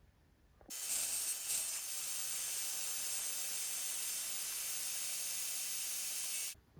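A steady, high hiss of air or gas jetting out, starting abruptly just under a second in and cutting off sharply shortly before the end.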